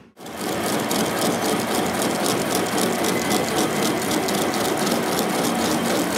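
Metal lathe running while its cutting tool turns down the weld build-up on a Sinotruk Howo truck's front wheel spindle, giving a steady, fast, even chatter of metal cutting. It starts abruptly just after the beginning.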